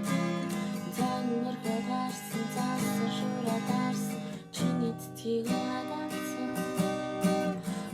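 Music: an acoustic guitar strummed in steady chords, with a brief break about four and a half seconds in.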